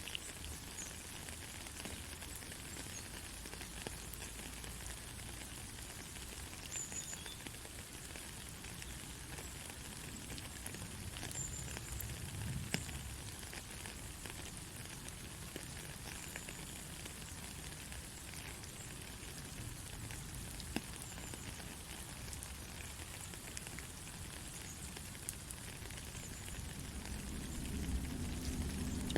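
Soft, steady rain with scattered patter of individual drops. A low rumble rises near the end.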